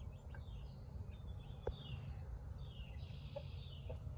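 Chicks peeping: a string of short, high, downward-sliding chirps over a low outdoor rumble, with a single sharp click partway through.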